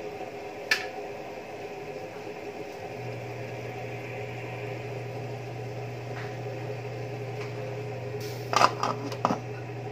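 Aluminium pot of pork broth boiling on a gas burner, a steady noise with a low hum, and a single sharp click about a second in. Near the end, the aluminium lid clatters several times as it is set on the pot.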